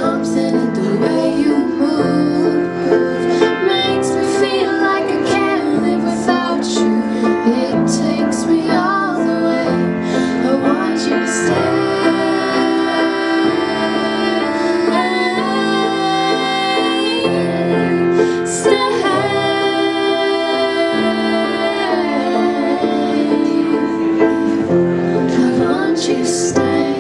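A woman singing a slow song with grand piano accompaniment, holding several long notes in the middle of the passage.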